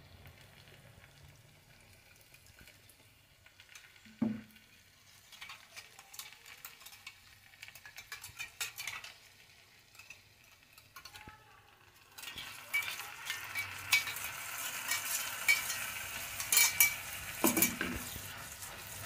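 Hot oil sizzling in a frying pan as bean paste and onions are stirred with a wooden spatula. The crackling starts about twelve seconds in, after a quiet stretch broken by a single knock.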